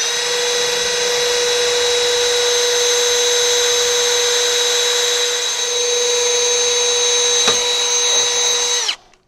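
Cordless power tool motor running at a steady full speed for about nine seconds: an even whine with a high hiss, which then winds down.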